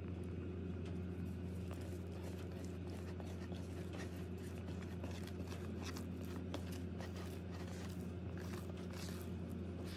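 A hand kneading and squeezing sticky, wet pizza dough in a plastic bowl, with irregular squelching and slapping sounds, over a steady low hum.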